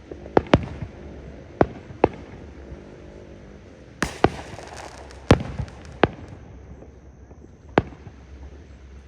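Fireworks shells bursting: about ten sharp bangs at irregular intervals. The bang about four seconds in is followed by a second of crackling hiss.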